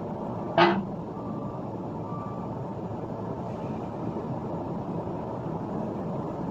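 An engine running steadily, its even rumble sitting low, with one short sharp sound about half a second in.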